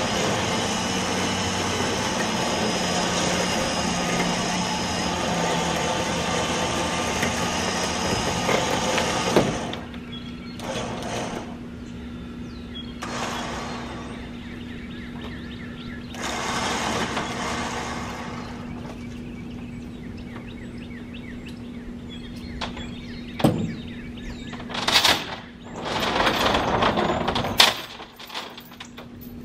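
The log arch's powered hoist runs hard and steadily for about nine seconds, then cuts back sharply to a steady low hum. Brief surges of noise follow as the pine log is set onto the trailer, and several sharp knocks come near the end.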